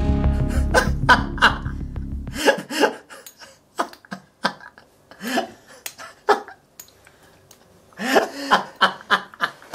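Film score with a low throbbing drone that cuts off about two and a half seconds in. Under and after it, a man laughs in short fits, with a denser burst of laughter near the end.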